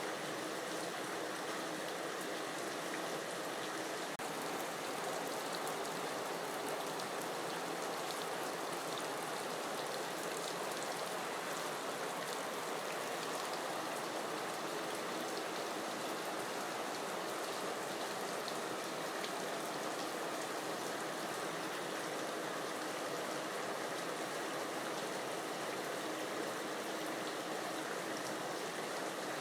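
Steady rain: an even hiss with a fine patter of drops, unchanging throughout.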